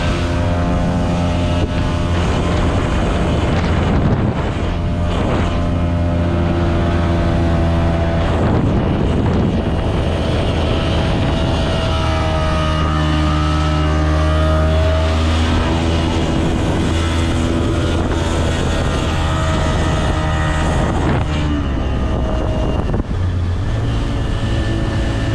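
Speedboat engine running under way, its pitch shifting up and down several times as the throttle changes, over a steady rush of wind and water.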